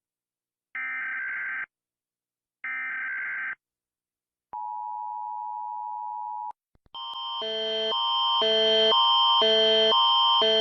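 Emergency alert system tones. First come two short buzzy data bursts of about a second each, like EAS header tones. Then a single steady tone lasts about two seconds. From about seven seconds in, a loud alarm of stacked tones alternates about twice a second and swells in loudness.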